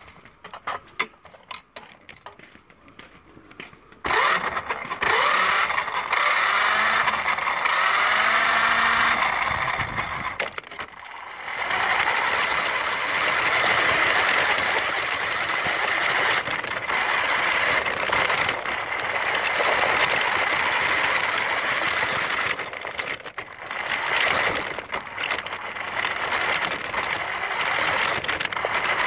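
Toy RC car's small electric motor and gears whirring loudly as it drives over dirt, starting about four seconds in with a few rising and falling sweeps in pitch as it speeds up and slows. It cuts out briefly near the middle, then runs on steadily.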